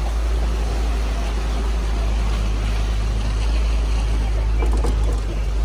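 Open-sided safari ride truck driving on a wet road, its engine a steady low rumble and its tyres splashing through shallow water running across the road.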